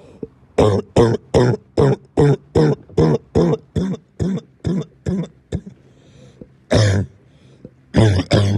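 A man's barking cough: a long fit of about fifteen short, hoarse, voiced coughs at roughly three a second, growing a little fainter, then after a pause a single cough, and a new fit starting near the end.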